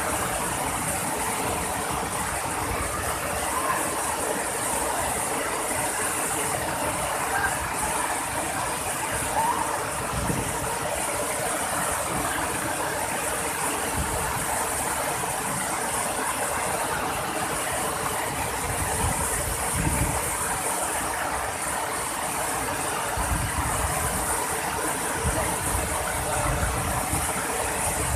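Steady rush of water falling at a waterfall, with a few low rumbles along the way.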